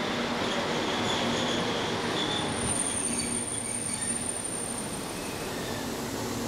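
ČD class 742 diesel-electric locomotive rolling in with its passenger train and braking to a stop: a steady rumble and engine hum under thin, high squeals from the brakes and wheels, with one long high squeal from about two seconds in until near the end.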